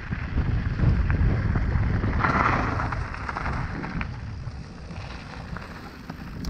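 Mountain bike rolling down a rough trail: wind buffeting the camera microphone over a steady rumble and rattle from the tyres and frame, with a louder rush about two seconds in.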